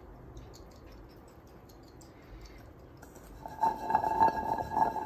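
Faint at first, then about three and a half seconds in, homemade boilies begin rattling and rolling around a small metal saucepan as it is swirled, with quick irregular knocks over a ringing tone from the pan.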